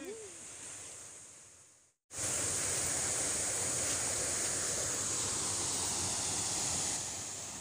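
Steady rushing of flowing river water. It comes in abruptly about two seconds in, after a brief fading hiss and a moment of silence, and eases off near the end.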